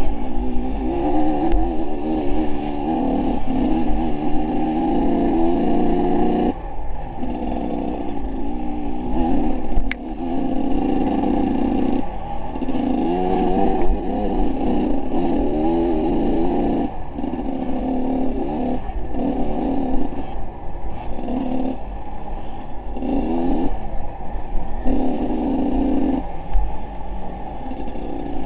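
A vehicle engine running and revving up and down again and again as it is driven, with a steady low rumble under it.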